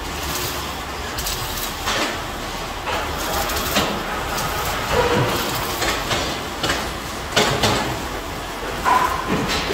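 Metal workshop noise: a steady machinery din with frequent sharp clanks and knocks of steel being handled, a few of them briefly ringing.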